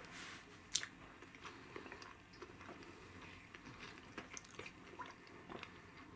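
Faint mouth sounds of eating and drinking, chewing and swallowing, with one sharp click a little under a second in.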